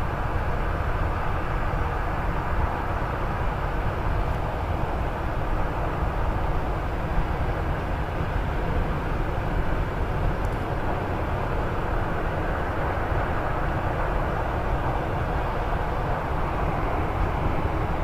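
Steady rumbling industrial noise from a steel mill, with no breaks, strokes or clear tones.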